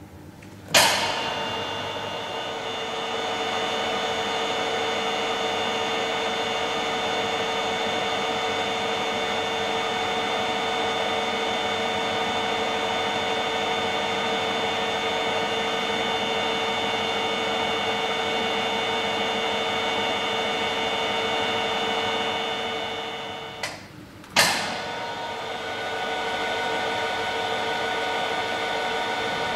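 Plate bending roll machine's electric roll drive starting with a sharp knock about a second in, then running with a steady whine of several tones. A little before the end it stops for about a second and starts again with another knock.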